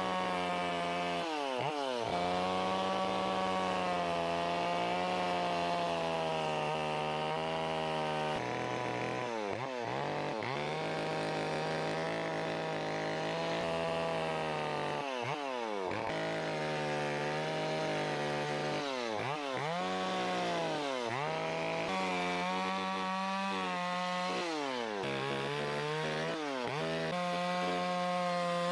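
Carving chainsaw running steadily, its engine pitch dropping sharply and climbing back about every few seconds as it works the wood.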